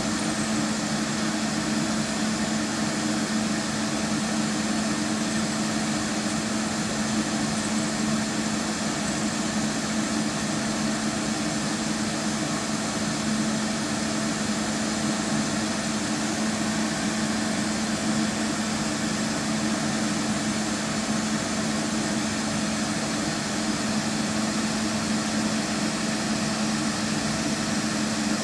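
Light rail vehicle standing at its terminus with its onboard equipment running, a steady hum with one strong low tone and fainter higher tones, unchanging throughout.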